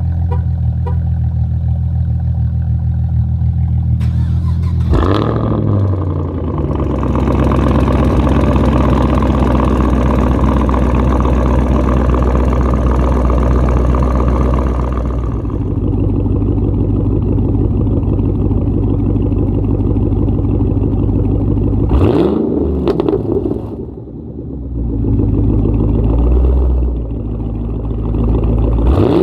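Straight-piped Chevrolet Camaro ZL1's supercharged 6.2-litre V8 idling, then revved. About five seconds in it climbs and is held high for about ten seconds, then drops back and is blipped up again a few more times near the end.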